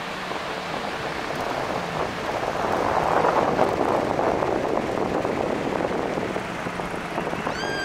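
Small surf washing onto a sandy beach: a steady hiss that swells for a few seconds in the middle and then eases. A short high tone that rises and falls comes in near the end.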